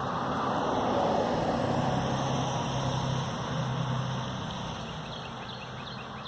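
A steady rushing noise with a low hum, loudest about a second in and slowly fading, like a passing vehicle; a few faint bird chirps near the end.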